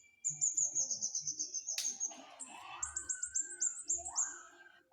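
A flowerpecker (cabe-cabean) singing in two fast runs of short, very high-pitched notes. A sharp click comes near the middle, and some lower sliding notes fall between the runs.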